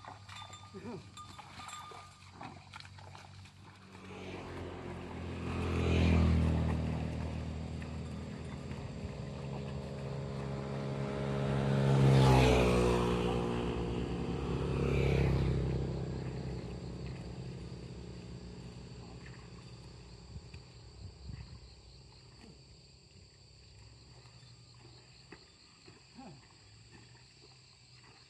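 Motor vehicles passing on the road: the engine noise swells from about four seconds in, peaks three times, and fades away in the last few seconds.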